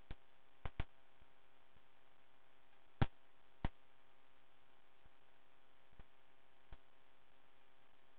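Faint, steady electrical hum on the aircraft's narrow-band intercom audio feed, broken by about seven sharp clicks, the loudest about three seconds in.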